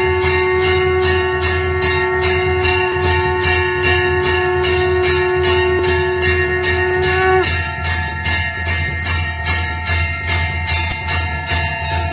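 Temple bells rung rapidly and continuously, about four strikes a second, their ringing tones hanging on between strikes over a steady low hum. About seven seconds in, the lowest ringing tone cuts off suddenly and the ringing goes on slightly quieter, with a changed set of tones.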